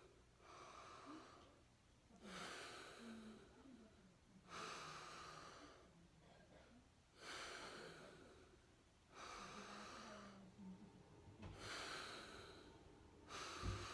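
Bhastrika pranayama: slow, deep breaths drawn in and pushed out through the nose, each a faint rush of air about a second long, roughly every two seconds, about seven in all.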